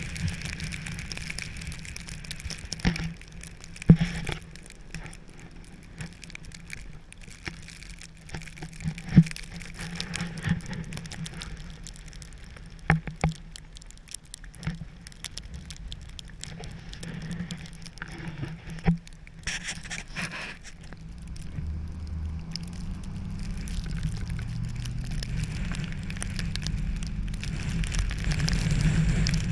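Falling precipitation pattering, with irregular sharp ticks scattered through it and a low rumble that grows louder toward the end.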